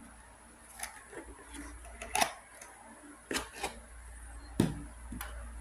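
Clear plastic packaging crinkling and rustling as a cube puzzle is worked out of its bag by hand, with a few sharp clicks and taps. The loudest tap comes about four and a half seconds in.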